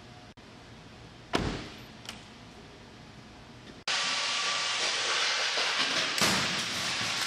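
A single sharp thud about a second in, then a loud steady rushing noise as the 2015 Hyundai Genesis sedan is pulled down the crash-test track. About six seconds in comes a bang as the car's front end slams into the rigid barrier in a 35 mph frontal crash test.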